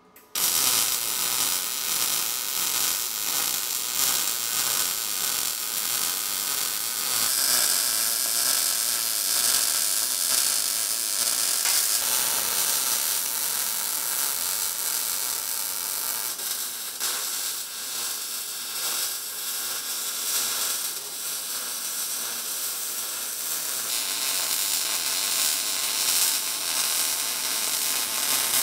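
MIG welder arc crackling and sizzling continuously as a long weld is run on steel tubing of the Lincoln Electric 210MP. The shielding-gas bottle has run empty, so the weld is being made without gas and comes out porous.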